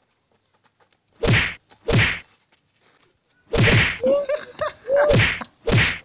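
Punch and slap sound effects as a man on the ground is beaten: two heavy whacks a second or so in, a short pause, then a quicker run of four more from about three and a half seconds.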